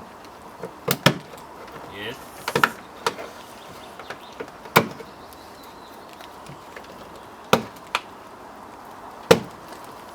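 Sharp plastic snaps and clicks, irregularly spaced, as a plastic trim cover is levered off with plastic trim-removal tools and its retaining clips pop loose.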